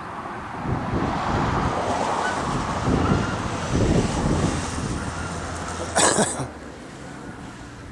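Strong, gusty wind buffeting the microphone, swelling and falling unevenly, with a short, sharp rush of noise about six seconds in.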